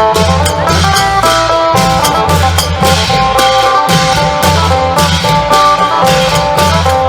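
Isan phin (plucked lute) playing a fast melody over klong yao long drums and percussion, with a steady driving beat.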